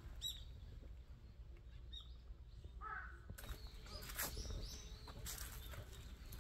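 Wild birds chirping in short, high calls, with a lower call about three seconds in, over faint outdoor ambience.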